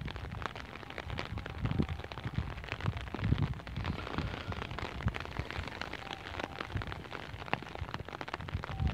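Wind buffeting the microphone in uneven gusts, a low rumble with crackling over it.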